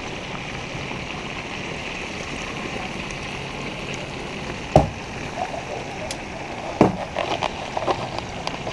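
Sheepshead frying in oil in a pan, a steady sizzle. Metal tongs clack sharply against the pan about five seconds in and again about two seconds later.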